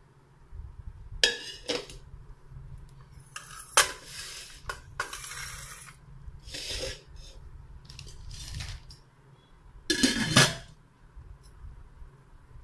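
Prestige stainless steel handi pressure cooker pot and its lids handled on a granite counter: a string of separate metal clinks, knocks and scrapes, with the loudest clatter about ten seconds in.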